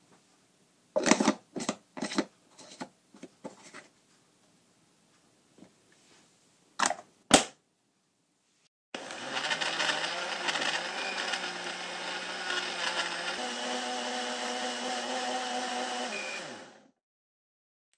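A few knocks and clatters, then two sharp plastic clicks as the cap is fitted. A personal blender then runs for about eight seconds, crushing ice with milk, puffed wheat cereal and vanilla ice cream into a smooth drink. Its pitch shifts partway through as the mix smooths out, and it stops abruptly.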